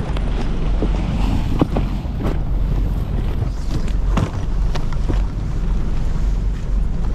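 Steady low rumble of a fishing boat's engine as its bow is held against a shore rock, with wind on the microphone. Scattered knocks and clatter of gear being handled on the rock.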